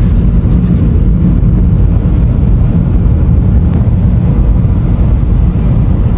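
A car driving along, with a steady low road and engine rumble.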